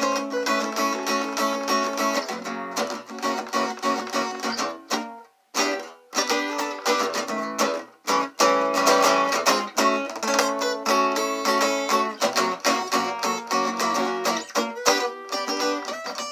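Guitar strummed in a rhythmic instrumental passage of a song, with no singing. It stops briefly about five seconds in and dips again near eight seconds.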